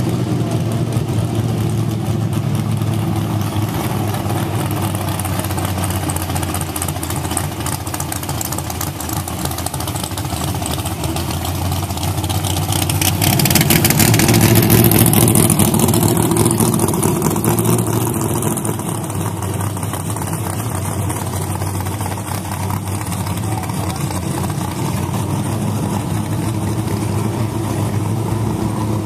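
Classic cars' engines running as they drive past one at a time. It gets loudest about halfway through as a second-generation Chevrolet Camaro passes close by, then fades back to a steady engine rumble.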